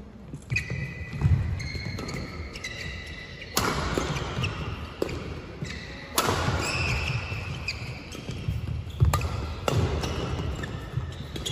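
A fast badminton rally: sharp cracks of rackets hitting the shuttlecock every second or few seconds, ringing round the hall, the loudest a jump smash about six seconds in. Between shots come short high squeaks of court shoes on the mat and thuds of footfalls.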